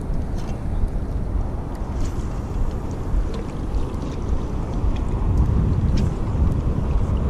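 Wind buffeting the microphone in a steady low rumble, with a few faint clicks.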